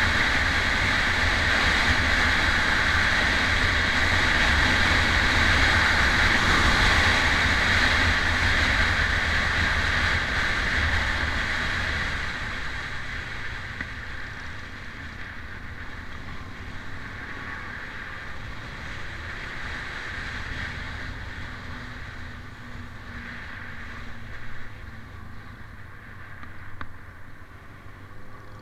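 Motorcycle on the move, heard from a camera on its handlebars: wind rush over the microphone with the engine's low running hum underneath. Loud for the first dozen seconds, then it drops and stays quieter.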